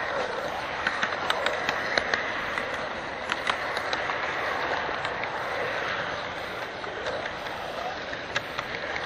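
HO-scale model freight train rolling along its track, heard from a camera riding on the train: a steady rolling hiss of the cars' small wheels on the rails, with sharp irregular clicks as they cross rail joints and turnouts.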